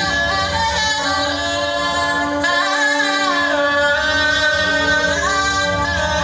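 Amplified singing from a stage drama's song, the voice gliding between long held notes over a steady sustained instrumental accompaniment.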